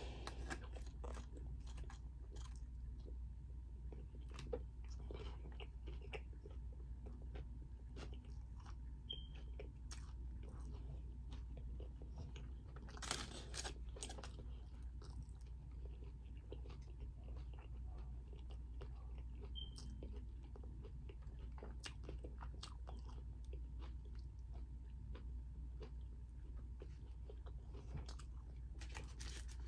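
Close-mouthed chewing of a taco: soft, irregular mouth clicks and smacks over a steady low hum. There is one louder noise about 13 seconds in.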